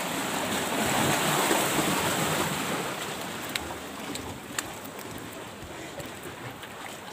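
Sea surf and wind on the microphone: a steady rushing hiss, stronger over the first couple of seconds and then easing off, with a few faint clicks around the middle.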